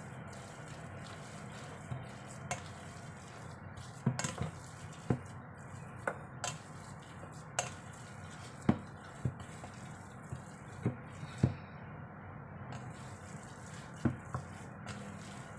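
Spatula stirring a wet ground-pork embutido mixture in a stainless steel bowl: wet squishing, with irregular sharp knocks of the spatula against the metal bowl, about one a second.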